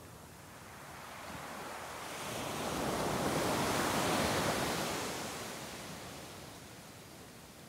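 Ocean surf: a small wave breaking and washing up the sand, swelling to a peak about three to four seconds in and then fading away.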